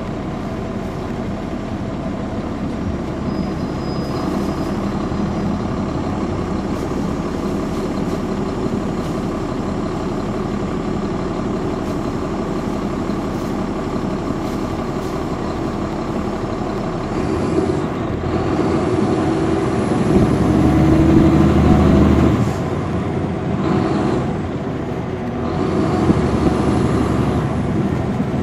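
Caterpillar C13 ACERT diesel engine of a 2009 NABI 416.15 transit bus running steadily as the bus travels. It grows louder for a few seconds about two-thirds of the way in, then again near the end.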